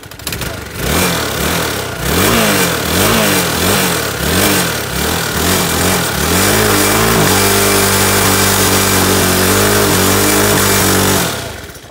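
Honda 250 scooter's single-cylinder four-stroke engine, running with dish soap in place of engine oil, starts and is revved up and down about once a second, then held at a steady higher speed for about five seconds before it is shut off abruptly near the end.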